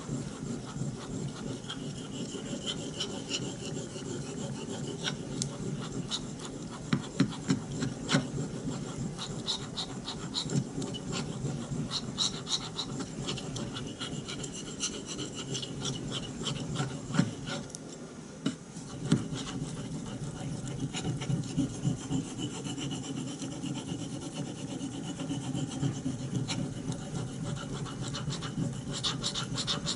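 Repeated back-and-forth rubbing strokes on a wet 12,000-grit Japanese waterstone during knife sharpening, with a brief pause a little past halfway.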